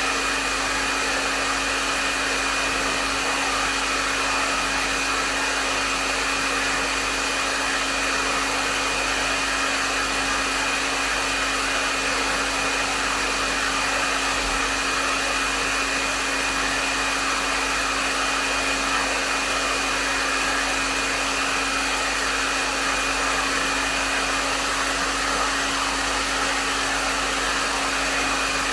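Hair dryer running steadily: an even rush of blown air with a constant motor hum and a faint high whine, unchanging throughout.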